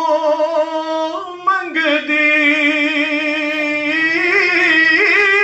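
A man's solo voice singing devotional verses unaccompanied through a microphone and loudspeaker, in long held, wavering notes. The line breaks briefly about one and a half seconds in and steps up in pitch near the end.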